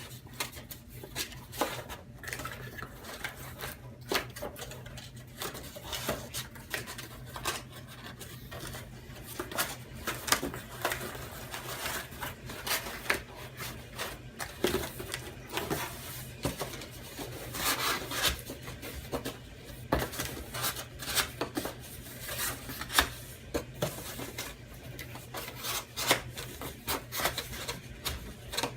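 Cardboard of a BCW card storage box being folded and handled: irregular rubbing, scraping and small taps as its flaps and dividers are pushed into place, over a steady low hum.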